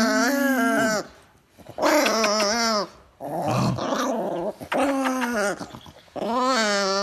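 Chihuahua growling in about five bouts of roughly a second each, its pitch wavering up and down, while being nuzzled.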